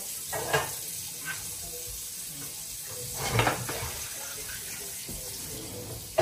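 A ceramic serving dish set down on a glass-top electric stove, clattering about three and a half seconds in after a lighter knock near the start, over a steady hiss.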